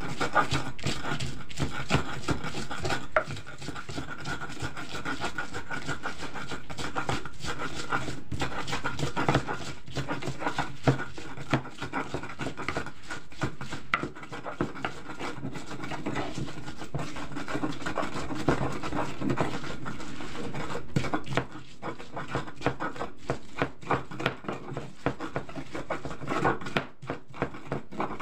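Ulekan pestle grinding and scraping chillies, garlic and salt in a cobek mortar, with many small irregular knocks of the pestle against the bowl.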